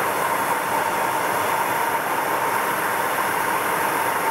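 Handheld gas torch burning with a steady hiss as its flame heats the tip of a steel awl.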